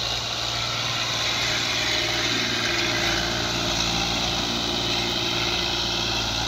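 Fiat 480 tractor's three-cylinder diesel engine running steadily under load while pulling a nine-tine cultivator through dry, cloddy soil. It grows a little louder about two seconds in.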